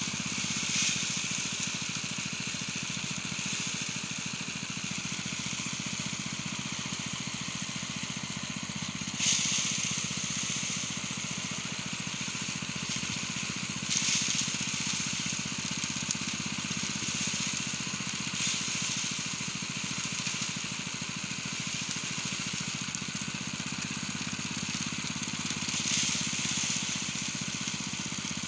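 Small engine running steadily, with a rushing hiss that swells briefly every few seconds.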